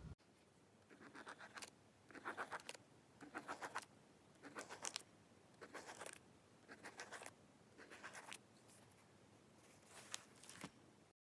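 Pen scribbling on lined notebook paper, in short scratchy strokes about once a second.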